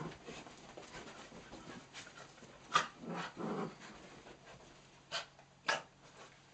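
Miniature dachshunds and cocker spaniels play-fighting: a low play growl about three seconds in, several short sharp sounds (the loudest just before it, two more near the end), and panting between.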